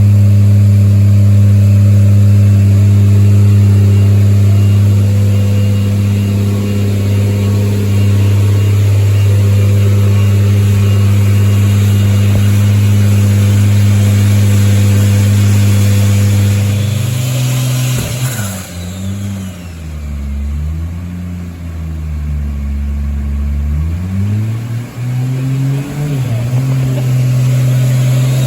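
Turbocharged 2JZ-GE inline-six engine running loud at a steady speed, held there for much of the time under dyno load. After about 17 seconds it drops off and quietens, its pitch wandering up and down a few times before it settles into a steady, slightly higher note near the end.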